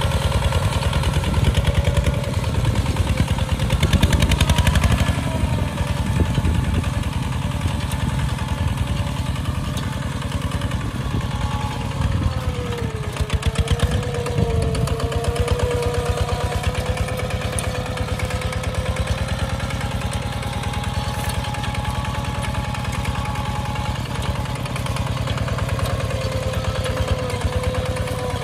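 Single-cylinder diesel engine of a Kubota two-wheel walking tractor running steadily under load while pulling a plow through the soil, with a rapid, even knock of firing strokes. Its pitch sags briefly about halfway through, then recovers.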